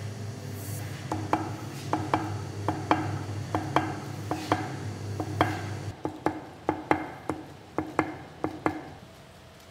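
A shoemaker's hammer tapping a thin metal strip against a stone slab, light sharp taps mostly in quick pairs, about twenty in all, stopping shortly before the end. A steady low hum lies under the first part and cuts off about halfway through.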